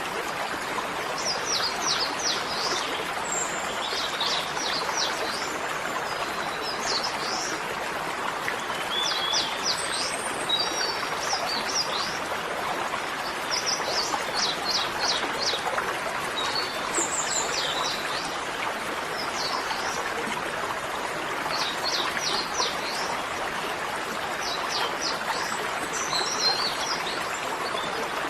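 A small bird chirping in short, quick trills every couple of seconds over a steady rushing like running water.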